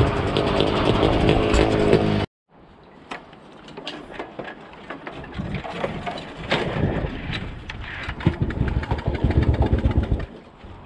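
Motorcycle engine running, heard from the bike itself: a loud, steady engine drone that cuts off suddenly about two seconds in. Then the engine runs quieter at low speed over rough dirt, with scattered clicks and knocks, getting louder for a couple of seconds before it drops back near the end.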